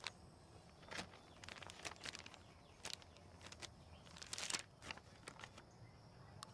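Faint rustling and scattered light clicks of military ration (MRE) pouches being handled, over a quiet background.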